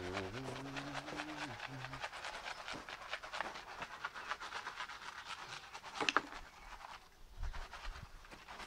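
Grass seed and fertiliser granules rattling and pattering as they are shaken from the box onto bare soil: a dense run of fast ticks that dies away about seven seconds in. A short low hum of a voice comes at the start, and a sharper click about six seconds in.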